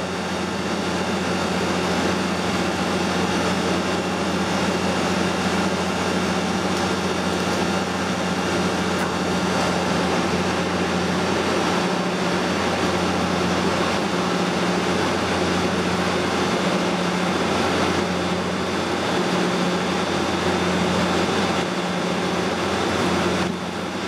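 12 kV neon sign transformer energised, driving a high-voltage arc: a steady mains hum with an even hiss of arcing over it.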